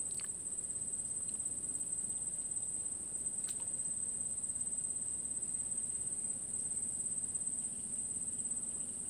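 A steady, high-pitched insect chorus shrilling without a break, with a couple of faint clicks.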